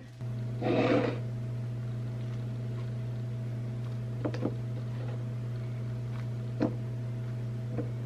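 Steady low electrical hum throughout, with a brief rustle about a second in and a few soft clicks as banana pieces, broken off by hand, drop into a plastic blender cup.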